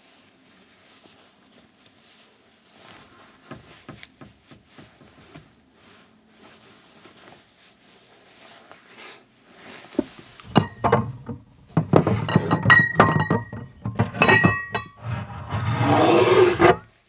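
Faint rustling and small knocks, then glass bottles clinking and knocking against each other and the cabinet shelf as they are pulled out, with a longer scraping rub near the end before it cuts off suddenly.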